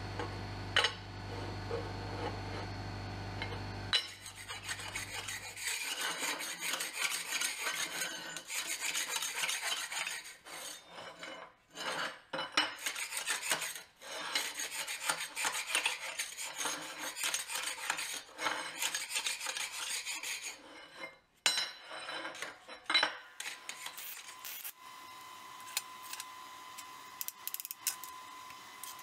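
A steady machine hum for about four seconds, then a long stretch of rasping, scraping metal on plasma-cut steel plates, broken by sharp clinks as the plates are handled.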